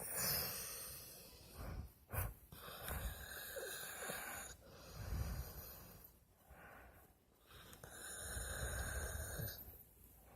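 A sleeping dog snoring: a run of about five long noisy breaths with short quieter gaps between them, and a brief sharp click about two seconds in.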